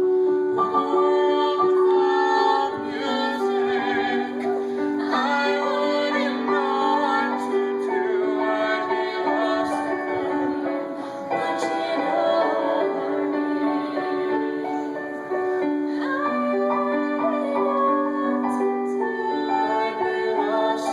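Music: a woman singing a slow song with keyboard accompaniment, the notes held and changing about once a second.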